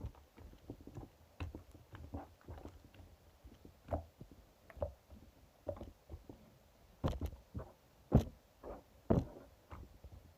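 Hands squeezing and pressing opaque slime, making irregular wet clicks and pops a few times a second, the loudest in the second half.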